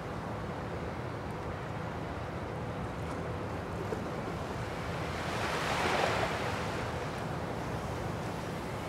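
Sea washing against the concrete blocks of a breakwater, with steady wind; about five to seven seconds in one wave surges up louder and falls away.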